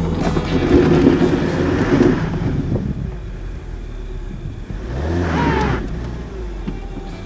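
Car driving along a soft sandy track, with steady engine and tyre noise. The engine revs up briefly about five seconds in.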